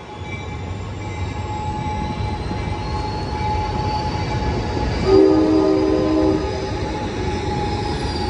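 Amtrak Capitol Corridor passenger train pulling out, with a Siemens SC-44 Charger diesel locomotive pushing at the rear: a steady rumble of the bilevel coaches rolling past and a high whine slowly rising in pitch. About five seconds in, a short horn blast of several notes sounds for over a second.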